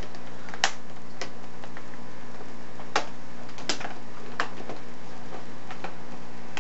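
Sharp plastic clicks, about seven at irregular intervals, as the laptop screen's plastic bezel trim is pressed and snapped into place around the display.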